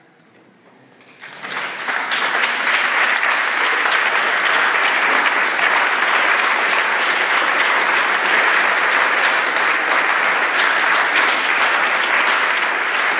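A roomful of dancers applauding, the clapping breaking out suddenly about a second in and then holding steady and full.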